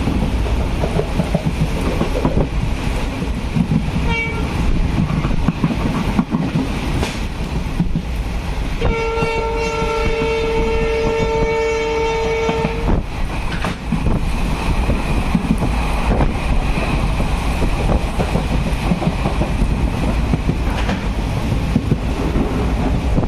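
A passenger train running on the rails, with a steady rumble and the clickety-clack of wheels over rail joints. The train's horn gives a brief toot about four seconds in and one long, steady blast of about four seconds near the middle.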